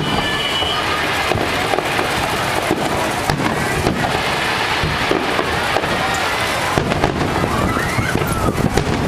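Fireworks going off densely: a continuous rapid crackle of many small bangs, with faint whistling glides near the end.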